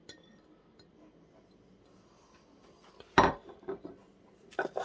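Kitchenware handled on a worktop: near silence at first, then one sharp knock a little over three seconds in, followed by a few lighter knocks and clinks, as a plate and a mini chopper's stainless-steel motor unit are handled.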